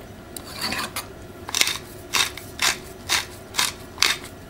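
Hand-turned pepper mill grinding peppercorns, an even run of short crunching strokes about two a second that begins about a second and a half in.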